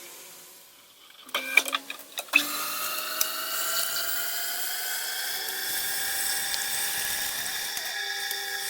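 A few sharp clicks and knocks, then a high-speed power-tool motor starts up and runs with a steady whine, its pitch creeping slowly upward.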